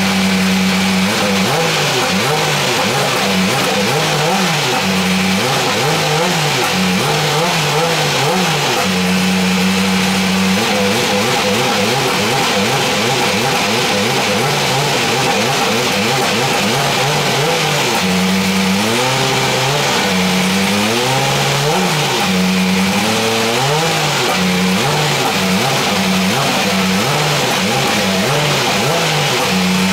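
Dallara SF14 Super Formula car's Toyota 2-litre turbocharged four-cylinder engine warming up. It holds a steady idle broken by repeated throttle blips, the revs rising and falling, with a run of bigger blips about two-thirds of the way through.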